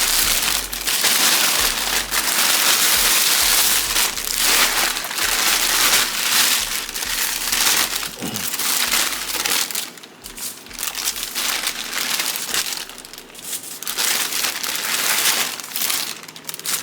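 Crinkling and rustling, as of plastic packaging being handled, nearly continuous for about the first ten seconds and then coming in shorter broken spells.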